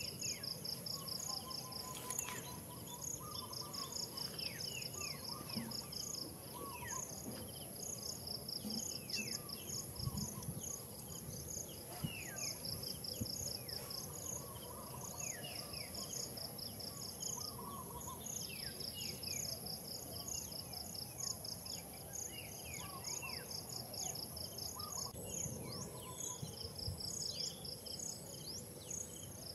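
Forest ambience of insects and birds: a steady high-pitched insect whine, with cricket-like pulsed trills coming in groups every second or so, and short falling bird chirps scattered throughout.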